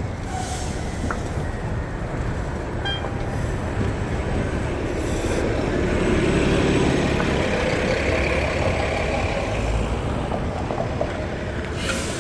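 Street traffic: a steady rumble of passing cars and trucks. One vehicle passes close and grows louder toward the middle, then fades.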